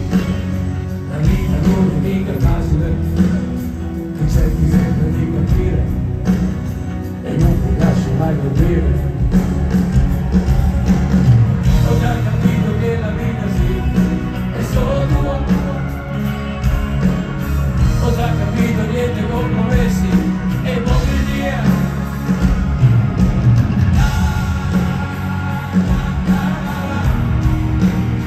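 Live rock band playing with a male singer singing in Italian, amplified through a stadium sound system and heard from among the crowd.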